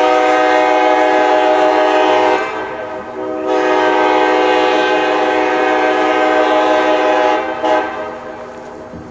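Nathan K-5LA five-chime locomotive air horn sounding its chord loudly in long blasts: one stops about two and a half seconds in, a second starts a second later and holds for about four seconds, and a short toot follows before it dies away.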